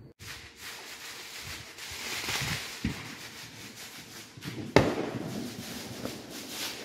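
Fireworks going off: a steady hissing crackle with a faint pop, then one sharp bang a little before five seconds in, the loudest sound.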